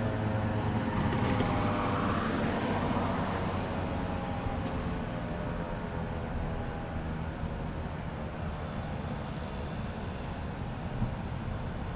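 Outdoor warning sirens winding down: several faint, slowly falling tones die away as the rotors coast to a stop. Steady traffic noise runs underneath, and a vehicle passes about a second or two in.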